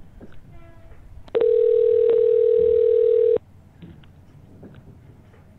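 Telephone line tone heard over a phone: one steady tone lasting about two seconds, starting with a click about a second in, as a call is being placed.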